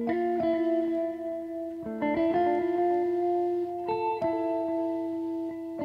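Background instrumental music: a slow melody of sustained plucked notes, changing pitch every second or two.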